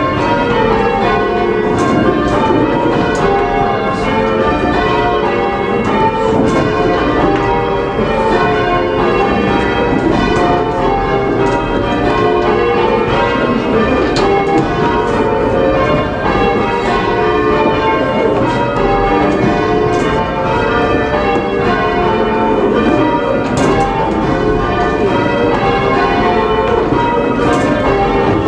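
Church bells rung full-circle in change ringing: the bells strike one after another in a steady, unbroken stream, their tones overlapping and changing order as the method runs.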